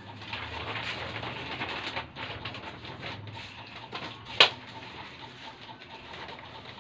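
Large sheets of chart paper being handled and rustled, with one sharp snap about four and a half seconds in.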